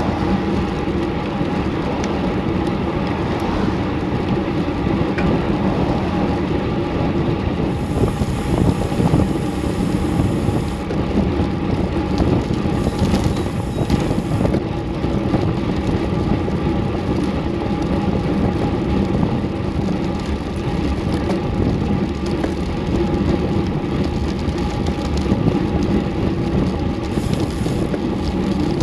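Wind rushing over an action camera's microphone on a road bike riding at about 20 mph, mixed with tyre noise on the pavement. The noise is loud and steady, with two brief stretches of brighter hiss near the middle.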